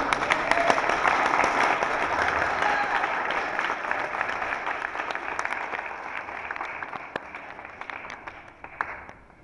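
Congregation applauding: dense clapping, loudest at first and gradually dying away over several seconds until it stops near the end.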